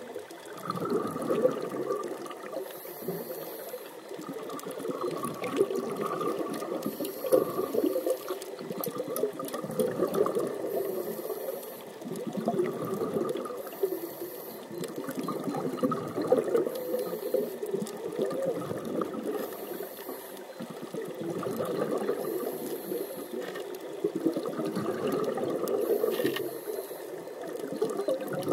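Underwater scuba breathing through a diving regulator: a short hiss on each inhale, then a gush of exhaled bubbles, repeating about every 3 to 4 seconds.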